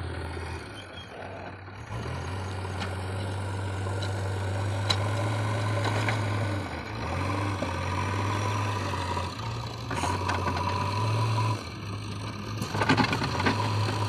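JCB 3DX backhoe loader's diesel engine running as the machine drives over the field, its engine note shifting up and down a few times. A few sharp knocks come near the end.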